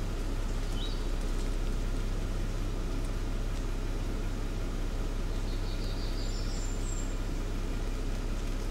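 Steady low rumble and hiss with a few faint high songbird chirps over it: a short note about a second in, then a quick rising trill and a thin high note around six to seven seconds in. The barred owl in view makes no call.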